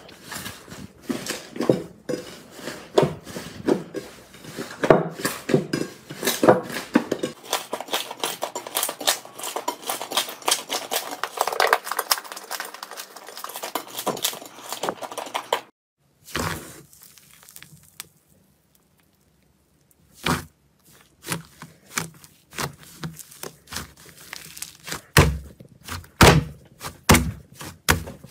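Slime being kneaded and squeezed by hand in a glass bowl: a rapid, irregular run of sticky clicks and pops as air pockets in the slime burst, with the occasional knock against the bowl. The sound stops for a few seconds just past the middle, then the popping starts again.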